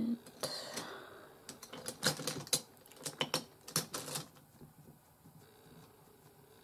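Irregular small clicks and taps of makeup tools, an eyeshadow brush tapping and working in a pressed-powder palette, lasting about four seconds.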